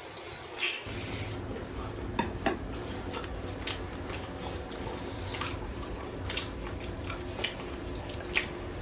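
Eating at a plate of roast chicken: scattered light clicks and taps of food and bones being handled against dishes. A steady low hum comes in about a second in.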